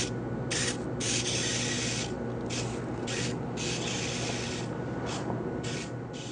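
Small walking robot driven by geared pager motors shuffling over carpet: scratchy scraping noise that starts and stops irregularly in short and longer spurts, over a steady low hum.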